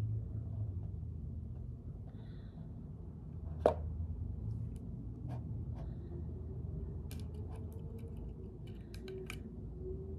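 Light clicks and taps of a new pair of sunglasses being handled, with one sharper click about three and a half seconds in and a cluster of small clicks near the end, over a low steady room hum.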